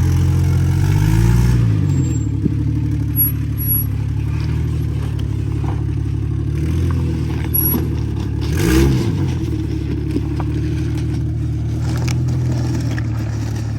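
Lifted Jeep's engine running under load on an off-road trail, revving up and back down twice, about a second in and again near the middle, with a few short knocks and scrapes.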